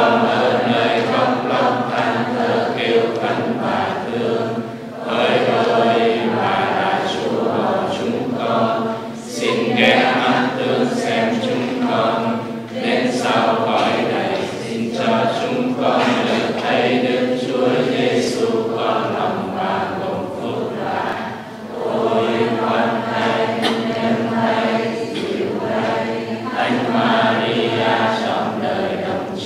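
A congregation chanting a Vietnamese Catholic prayer in unison, many voices reciting together on a steady pitch in phrases broken by short pauses.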